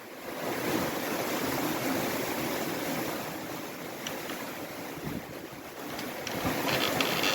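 Rough seas rushing and breaking around a sailboat under way in a heavy sea, with wind noise. The wash swells about half a second in and again near the end.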